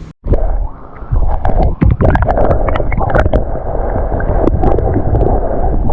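Water splashing and gurgling against a kayak close to the microphone, with many sharp splashes and a heavy low rumble. It starts abruptly after a brief dropout at the very start.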